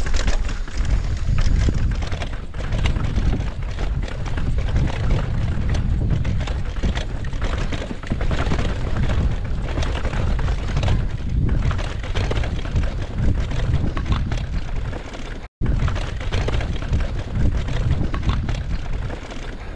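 Wind buffeting an action camera's microphone while a mountain bike rattles and knocks over rough stone steps. The sound cuts out for an instant about three quarters of the way through.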